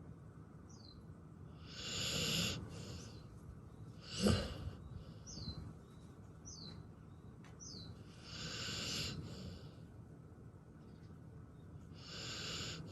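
A pit bull breathing out heavily in three long airy puffs, with a single sharp knock about four seconds in, the loudest sound. Faint short falling chirps of a bird come a few times in between.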